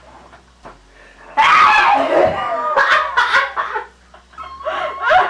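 A sudden loud vocal outburst about a second and a half in, falling in pitch over about a second, followed by short bursts of laughter.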